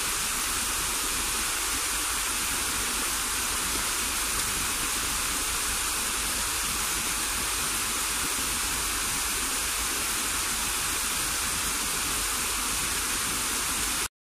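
Small rock waterfall cascading into a pond: a steady rushing of water that cuts off abruptly at the very end.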